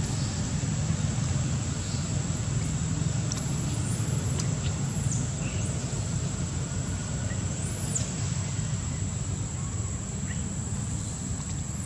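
Steady low rumble under a constant high-pitched whine, with a few short high chirps that glide up and down in pitch.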